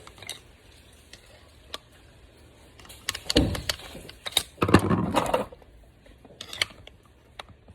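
Hands handling small parts and tools: two bursts of rustling and clicking about three and five seconds in, with a few lighter clicks later.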